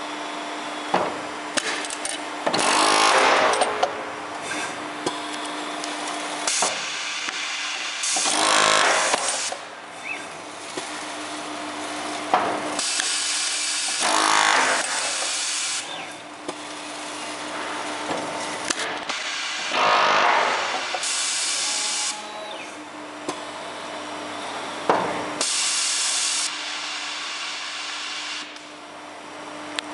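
Custom threaded-insert plunging gantry robot running through its work cycle: surges of machine noise about a second long come every few seconds over a steady hum, with sharp clicks in between.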